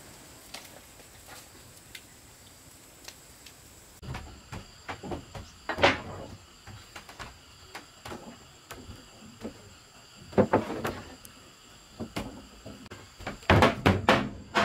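Irregular knocks and clunks of wooden boards being handled, faint and sparse at first, louder from about four seconds in and thickest near the end.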